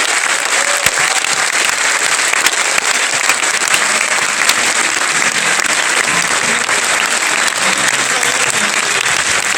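Large audience applauding steadily in a hall, a dense, even clapping that continues throughout.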